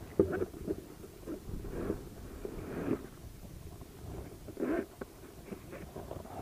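Irregular knocks, taps and scuffs of handling in a small boat as a just-landed small mangrove snapper is taken off the hook, with a couple of louder bumps.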